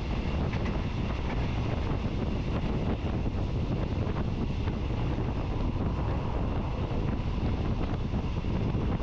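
Moving passenger train's steady running rumble, with wind buffeting the microphone.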